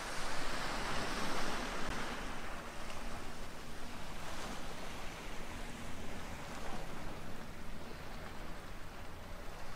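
Steady rushing noise of the sea washing against the shore, rising and falling in gentle swells.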